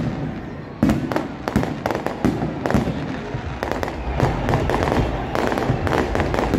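Aerial fireworks going off: sharp bangs of bursting shells, one right at the start and a loud one about a second in, then a thick run of crackling in the second half.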